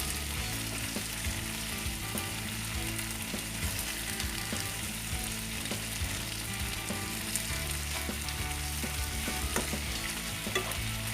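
Marinated chicken leg pieces sizzling and frying in a pan over a medium-to-low flame, a steady crackle with small scattered pops.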